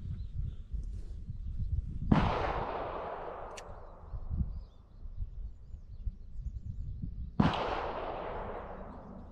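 AR-15-style rifle fired twice, about five seconds apart, each shot followed by a long echo that fades away over two to three seconds.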